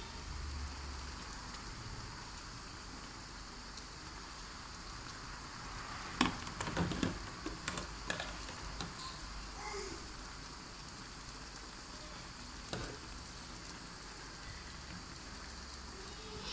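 Pan of banga soup boiling hard on a gas stove, a steady bubbling hiss. A cluster of knocks and scrapes about six to eight seconds in and another knock near the end come from a metal spoon against the pan.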